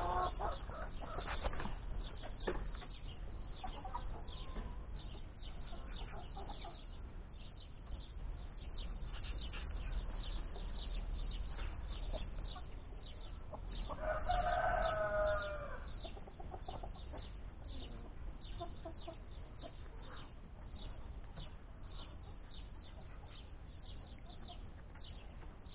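Chickens clucking quietly, with one louder, drawn-out call about fourteen seconds in that lasts nearly two seconds.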